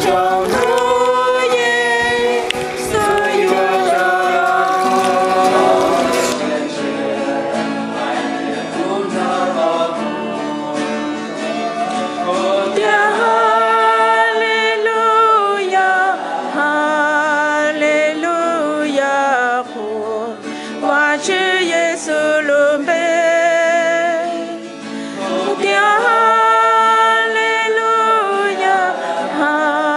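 A song with a singing voice, cut off abruptly about six seconds in, giving way to a small group singing a worship song, the voices rising and falling in long phrases.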